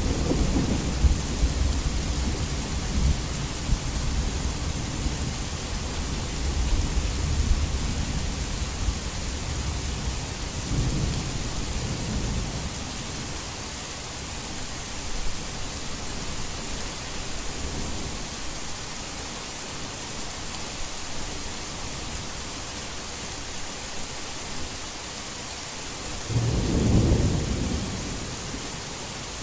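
Heavy rain falling in a steady hiss, with rolling thunder: a long rumble that dies away over the first ten seconds, weaker rolls around eleven and eighteen seconds in, and a louder roll near the end.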